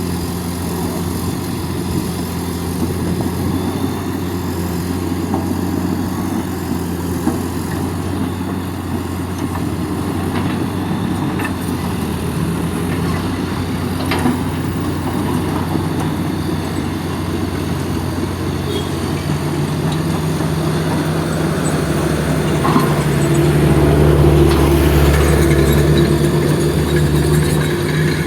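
Heavy construction-machine diesel engine running steadily, rising in load and loudness about two-thirds of the way through.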